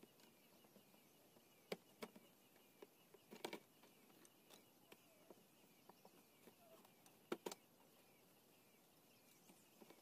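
Mostly quiet, with a few sharp taps and clicks of thin bamboo sticks knocking against a bamboo cage frame as they are fitted into it. There is a small cluster of taps about three and a half seconds in and a louder pair about seven and a half seconds in.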